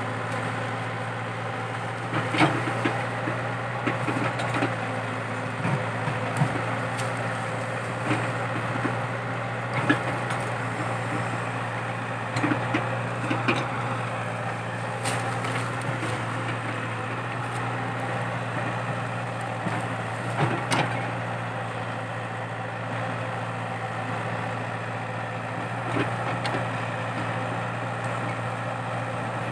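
Komatsu PC80 excavator's diesel engine running steadily under load, with scattered sharp cracks and snaps of eucalyptus stumps and roots being torn out of the ground.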